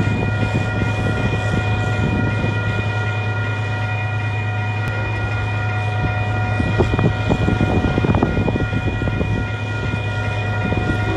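Grade-crossing warning bell ringing steadily, over a steady low rumble from an approaching Union Pacific freight train that cannot yet be seen.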